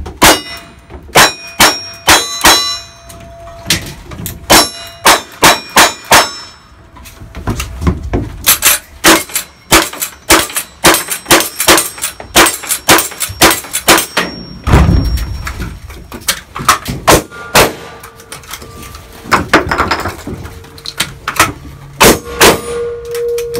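A fast string of gunshots from a timed cowboy action shooting stage, shot after shot in quick succession, with steel targets ringing as they are hit.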